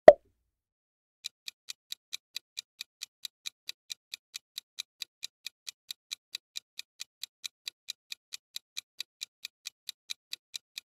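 A short pop sound effect at the very start, then a countdown timer's clock-ticking sound effect from about a second in: crisp, even ticks at between four and five a second.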